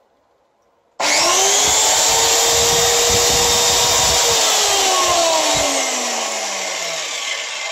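Titan plunge saw run free with no cut. The motor starts abruptly about a second in and quickly spins up to a steady high whine. After about three seconds it is switched off and winds down, its whine falling steadily in pitch and fading.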